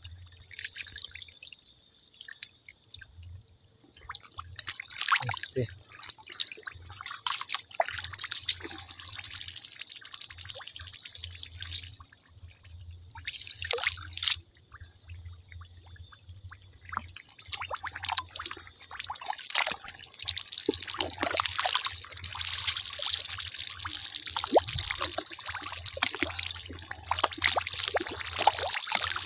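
Water splashing and sloshing in shallow muddy water as someone wades and handles the catch in a fish trap, in irregular bursts that grow busier and louder in the second half. A steady high-pitched hiss runs underneath.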